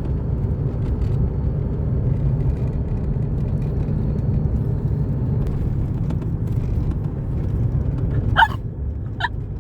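Car driving along a road, heard from inside the cabin: a steady low rumble of engine and tyres. Near the end come two short, high voice-like sounds about a second apart.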